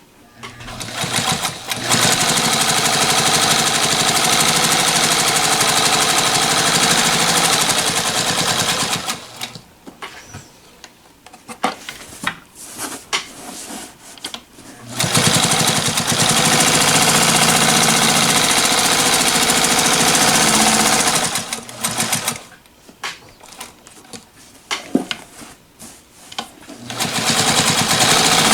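Straight-stitch sewing machine running at a steady speed in three runs of several seconds each, stitching through about six layers of muslin. Between the runs, scattered clicks and handling noises.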